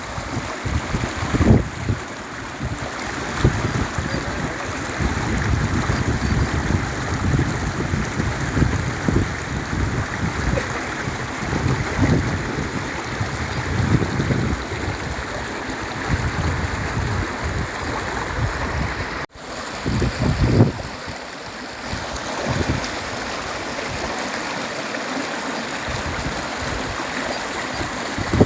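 Running water of a stream rushing steadily, with irregular low rumbles over it; the sound cuts out for an instant about nineteen seconds in.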